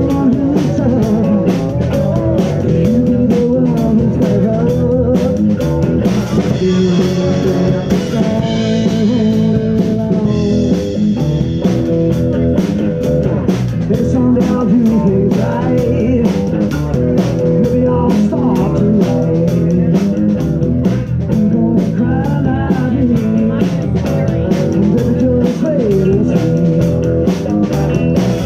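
Live blues-rock band playing: electric guitar, electric bass and drum kit keeping a steady beat.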